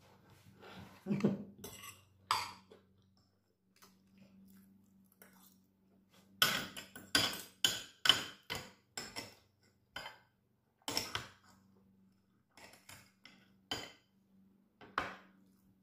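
Metal knife and fork clinking and scraping against a plate while cutting food, with a quick run of clinks from about six to nine and a half seconds in and scattered clinks after.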